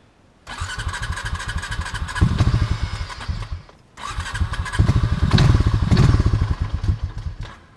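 A small off-road four-stroke engine cranked twice on its electric starter, each try lasting about three seconds, with a steady starter whine over rapid chugging. It gets louder partway through each try but does not keep running.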